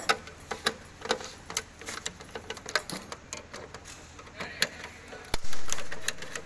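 Irregular light clicks and taps of plastic and metal parts being handled on a hand push seeder's clear plastic seed box, with one louder dull bump about five and a half seconds in.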